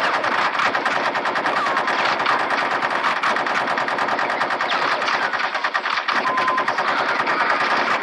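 Battle sound effect of continuous rapid machine-gun fire, the shots coming too fast to count and overlapping, with a brief whistling tone about six seconds in.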